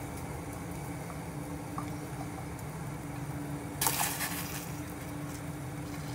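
Stainless steel pot of water boiling, a steady bubbling over a low steady hum. About four seconds in, a brief splash as a handful of baby carrots is dropped into the water.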